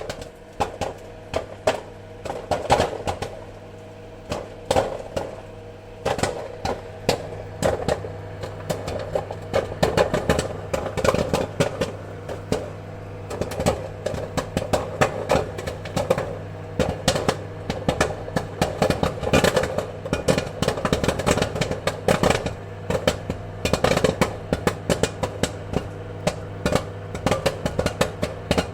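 Popcorn kernels popping in quick, irregular succession, some pops louder than others, over a steady low hum.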